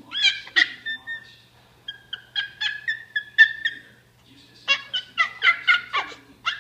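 A baby's high-pitched squealing laughter in short bursts: a few squeals at first, then a quick run of about four or five a second from just past the middle.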